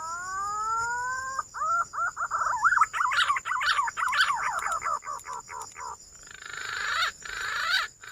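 Green pigeon (punai) song: a long rising whistled note, then a quick run of wavering, warbling whistles, then a few falling notes near the end. A thin steady high whine runs under it.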